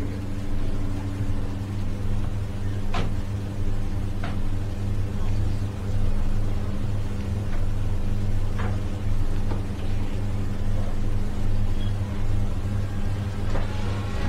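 A steady low mechanical hum, with a few short sharp clicks scattered through it.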